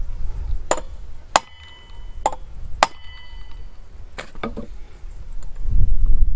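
Hammer striking a steel punch held against the flywheel hub of a Stihl 028 AVS chainsaw, to knock the flywheel loose from the crankshaft. There are about five sharp blows at uneven intervals over the first four seconds or so, some with a brief metallic ring.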